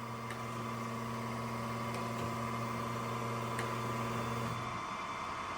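Acer AGS-1224AHD surface grinder running with a steady electric motor hum. The lower part of the hum cuts off about three quarters of the way through, leaving a higher steady tone.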